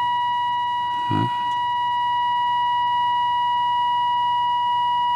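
Philips 206A valve radio's loudspeaker playing the signal generator's steady test tone, a high whistle-like note with overtones, as the IF transformer is peaked on 473 kHz during alignment.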